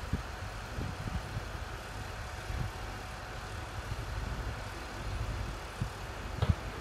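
Steady, uneven low rumble of construction-site machinery and wind, with one short sharp knock near the end.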